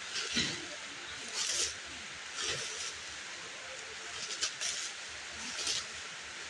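Parcel packaging being handled and opened, rustling in short bursts about once a second over a steady hiss.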